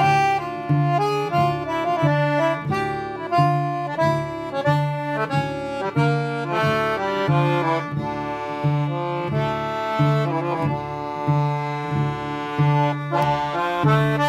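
Instrumental music: a melody of held, changing notes over a bass note that pulses at a steady rate, about once every 0.7 seconds.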